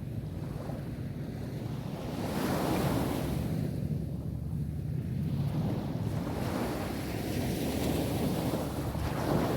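Sea waves rolling onto a beach, each wave a swelling rush of surf, about three in a row, a few seconds apart, over a steady low rumble of wind on the microphone.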